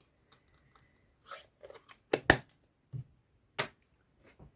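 Craft supplies being handled on a desk: a few short taps and clicks with some soft rustling. The loudest are two sharp taps close together about two seconds in.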